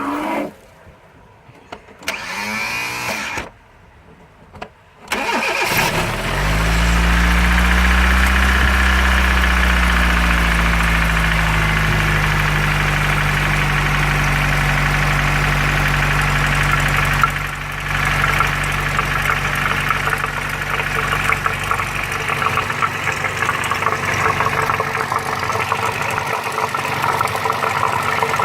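Fiat Punto 55's petrol engine started, catching about six seconds in after a short earlier burst, then running at a raised idle that eases down. From about eighteen seconds on the idle turns rougher, with an uneven ticking rattle in it: the weird sound the owner is pointing out, which they link to oil.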